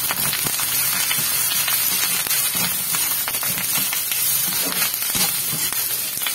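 Sliced onions and green chillies sizzling and crackling in hot oil in a kadai while being stirred with a perforated steel ladle, with scattered clicks and scrapes of the ladle against the pan.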